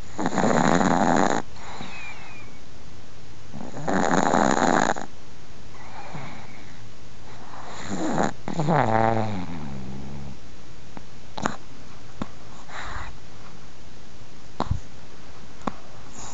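A 15½-year-old chihuahua snoring: two long noisy snores a few seconds apart, then a drawn-out snore with a clear tone that falls in pitch about eight seconds in, followed by several short clicks.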